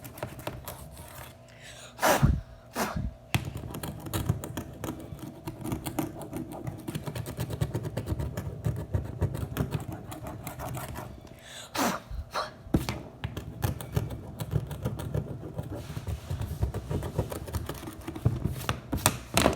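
Slime being kneaded and squeezed by hand, a dense run of small sticky clicks and pops from air pockets in the slime, with a few louder knocks about two, three and twelve seconds in.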